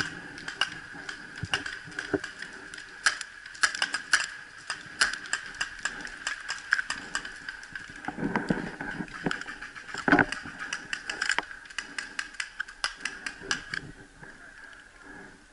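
Paintball markers firing: a long run of sharp pops at uneven spacing, some in quick strings, the loudest about ten seconds in, thinning out near the end.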